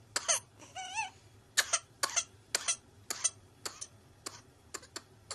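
An infant girl with whooping cough (pertussis) in a coughing fit: a rapid run of short, hacking coughs, mostly in pairs, with a short wavering squeal about a second in. The coughs grow fainter toward the end.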